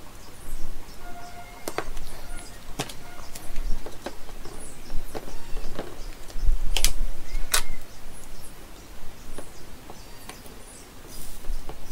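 Scattered sharp clicks and taps from small hand tools being handled during bench soldering work, with short high bird chirps in the background.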